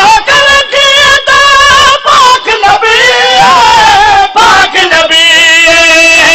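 A zakir singing a devotional Punjabi refrain into a microphone, holding long, wavering high notes in melismatic phrases with short breaths between them.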